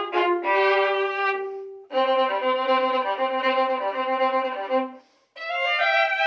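Two violins playing a duet, a sustained lower line under moving upper notes. The playing breaks off briefly about two seconds in and again for a moment near five seconds in, then resumes.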